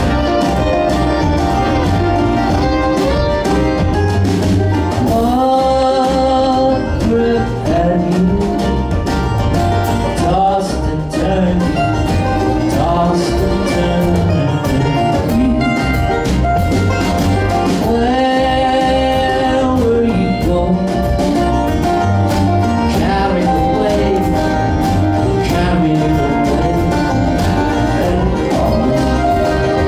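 Acoustic string band playing a bluegrass-style tune live: banjo, strummed acoustic guitar, upright bass, fiddle and mandolin together, with long held melody notes twice.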